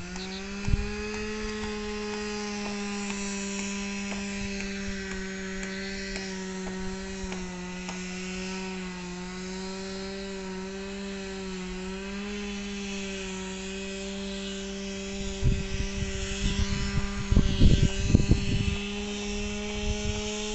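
Two-stroke chainsaw running at high revs: it revs up just as the sound begins, then holds a steady buzzing pitch with small dips. Low rumbling thumps come in bursts from about fifteen to nineteen seconds in.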